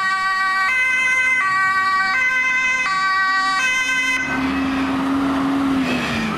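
Ginaf fire truck's two-tone siren sounding its alternating high-low call for about four seconds, then cutting off, leaving the truck's engine running as it drives.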